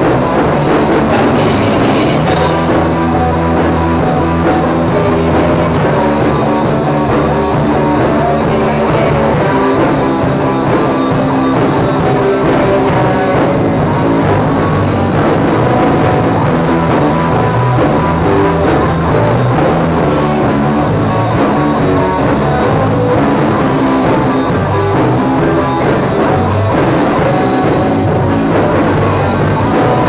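Rock music: an electric guitar, a Cort M200, playing a riff over a drum-kit backing, loud and unbroken.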